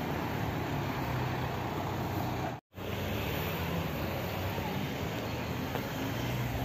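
Steady outdoor rushing noise with low rumble, like wind buffeting a handheld microphone. It cuts out to silence for a moment about two and a half seconds in, then resumes.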